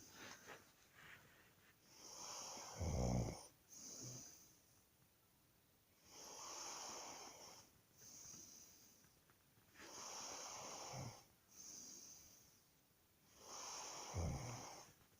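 A person snoring in sleep with slow, airy breaths in and out. A low snore comes on a breath about three seconds in, more faintly around eleven seconds, and again near the end.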